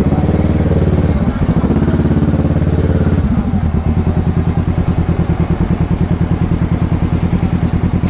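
Kawasaki 650's parallel-twin motorcycle engine running at low revs close to the microphone, a steady rapid low pulse. For about the first three seconds the note wavers as the bike creeps forward at walking pace, then it settles into an even idle.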